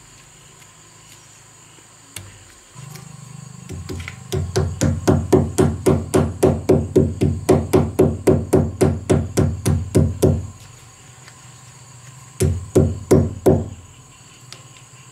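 Claw hammer striking into a brick wall's mortar in quick even blows, about four a second. A long run of blows is followed by a pause, then a shorter run near the end.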